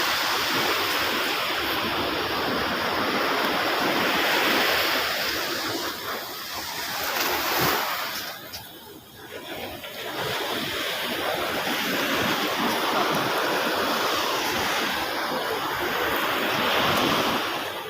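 Sea surf washing onto the shore: a continuous rushing that swells and ebbs, dipping briefly about halfway through before building again.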